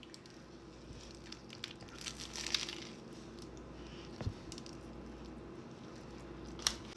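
Mouth sounds of someone biting and chewing a cheesesteak sandwich on a toasted hoagie roll, with scattered small clicks and a short crunchy patch about two and a half seconds in. A soft low knock comes a little after four seconds, and a sharp click near the end.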